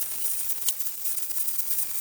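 Angle grinder running steadily with a high whine and a hiss, grinding and beveling steel, with one short click about two-thirds of a second in.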